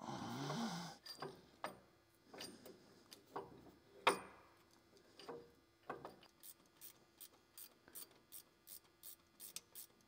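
Hand tools working metal bolts: a scrape and a few irregular metal clanks and knocks, the loudest about four seconds in, then a ratchet wrench clicking steadily about three strokes a second as a compressor mounting bolt is run in.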